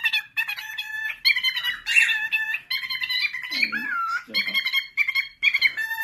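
Cockatiel chattering and warbling: quick runs of short chirps without a pause, with a dipping, swooping phrase a little past the middle.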